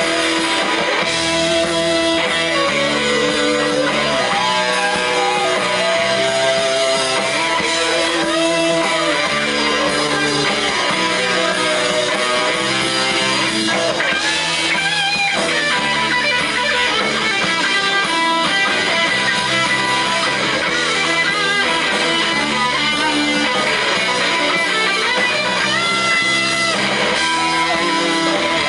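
Live rock band playing: two electric guitars over bass guitar and drums, with a lead guitar sliding and bending notes.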